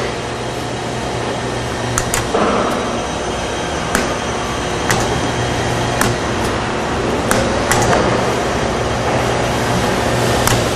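Patterson Kelly stainless steel twin-shell V-blender running, its shell turning with a steady motor hum. A sharp click comes about every two seconds.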